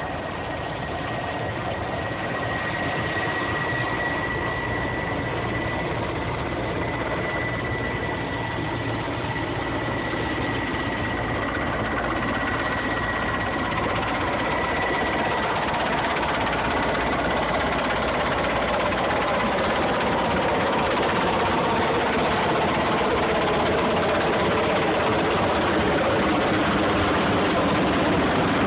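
Large helicopter flying in close with a steady rotor and turbine drone and a thin high whine, growing louder as it comes overhead.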